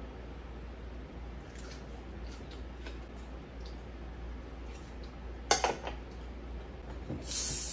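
Metal fork and knife lightly clinking on a plate while eating pancakes, with one sharp clink of cutlery about five and a half seconds in. A short loud hiss follows near the end.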